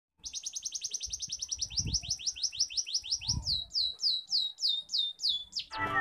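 Small songbird singing a canary-style phrase: a fast, high, even trill of about ten notes a second, then slower whistles, each falling in pitch, about three a second.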